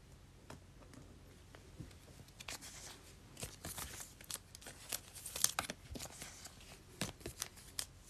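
Faint, scattered crinkles and clicks of trading cards and foil card-pack wrappers being handled, growing busier after the first couple of seconds.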